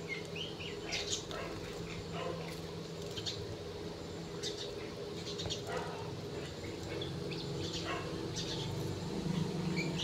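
Birds chirping: short, high chirps scattered irregularly, over a steady low hum.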